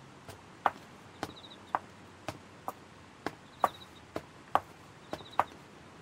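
Footsteps of two people walking slowly on pavement: separate sharp steps at an uneven pace, about two a second. A faint high trilling chirp comes in now and then.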